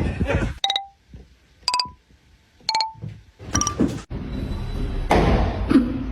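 Four short pitched tones, each a brief beep-like note at a slightly different pitch, about a second apart with near silence between them. From about four seconds in comes a steady rushing noise.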